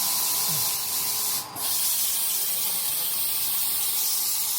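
Ultrasonic welder running on a plastic car door trim, giving a loud, steady, shrill hiss. It breaks off for a moment about a second and a half in, then resumes and cuts off sharply at the end.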